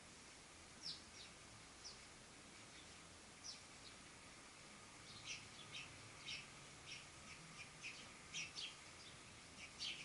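Sparrows giving short, faint chirps, a few scattered at first and then coming thick and fast from about halfway through.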